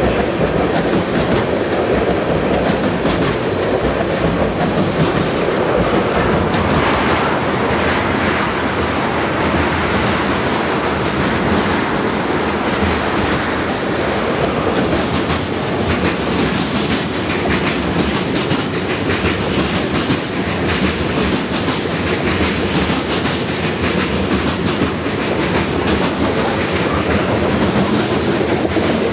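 Freight train tank cars rolling past, steel wheels clicking and rumbling steadily on the rails.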